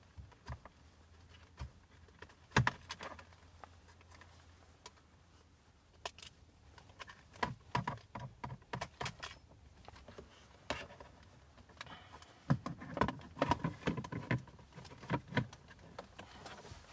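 Plastic dashboard trim frame around a car head unit being pressed and worked into place by hand: scattered clicks, knocks and rattles, coming in quick clusters. The frame is not seating properly.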